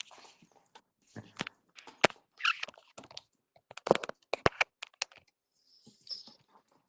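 Handling noise close to the microphone: an irregular series of sharp clicks and taps with brief rustles, the sound of a phone being handled while its settings are adjusted.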